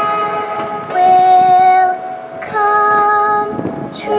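Fireworks show soundtrack music: sustained orchestral chords under a woman's singing voice, changing chord every second or two.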